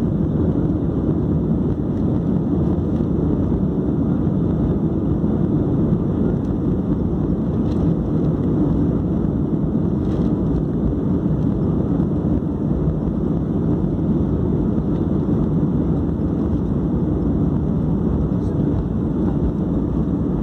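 Steady low rumble inside the cabin of an Airbus A320-family jet airliner: its jet engines running at low power with rolling and airflow noise as it taxis on the ground. The pitch and loudness stay even, with no spool-up for takeoff.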